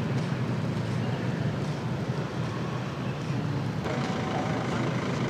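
Steady low rumble of a vehicle engine running nearby, over outdoor background noise, with an abrupt change in the sound about four seconds in.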